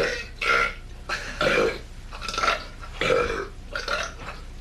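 A man burping repeatedly: six or seven short, loud burps in quick succession, roughly one every half second to second.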